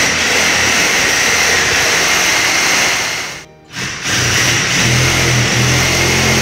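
Reciprocating saw (Sawzall) cutting along the top of a door frame to free what is holding it. It runs steadily, stops briefly about halfway, then cuts again.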